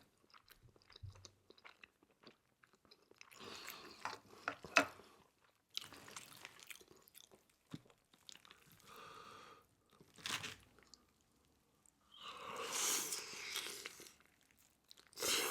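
A person chewing and crunching food close to the microphone, in several separate bursts with quiet gaps between, the longest and loudest near the end.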